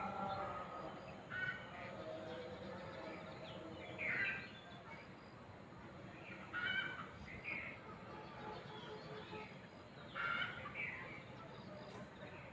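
Domestic fowl calling now and then: short, pitched calls a few seconds apart, a pair of them close together about two-thirds of the way through and again near the end.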